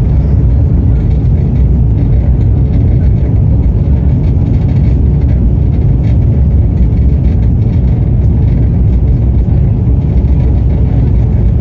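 Train running at steady speed: a loud, even low rumble.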